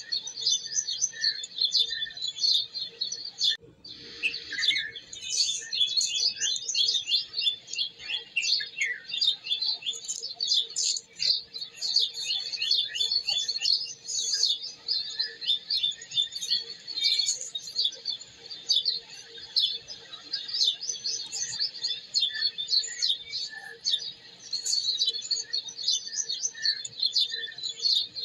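Many small birds chirping rapidly and continuously in a dense, overlapping chorus.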